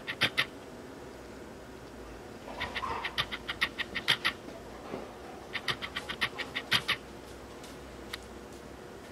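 Light, sharp clicking in quick bursts from a dog walking on a concrete floor: a few clicks at the start, then two fast runs, about two and a half and five and a half seconds in.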